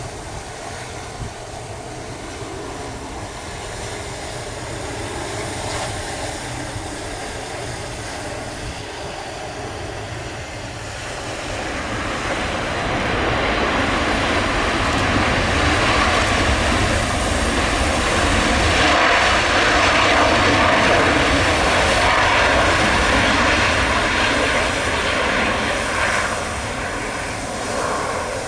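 Boeing 737 business jet's twin CFM56 turbofans running as the jet lands. The engine noise grows louder from about twelve seconds in, as it touches down and rolls out along the runway, and eases off near the end.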